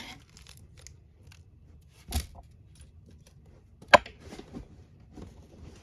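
Light clicks and taps of small plastic model-kit parts and wires being handled and fitted, with a sharp click about two seconds in and a louder one just before four seconds.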